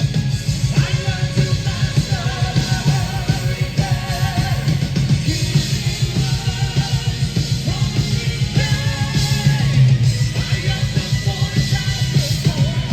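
Live symphonic metal band playing: fast, dense drumming and heavy bass and guitars under held sung notes with vibrato.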